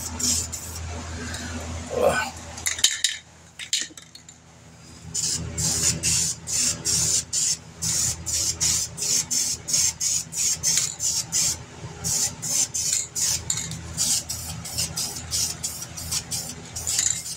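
Aerosol spray-paint can shaken by hand, its mixing ball clinking inside at about two to three rattles a second, to mix the paint before spraying; the rattling pauses briefly near the start and runs steadily from about five seconds in.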